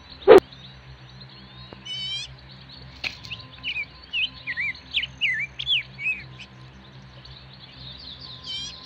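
Birds chirping: a trilled chirp about two seconds in, then a run of short whistled chirps rising and falling, and another trilled chirp near the end. A single dog bark sounds just as it begins.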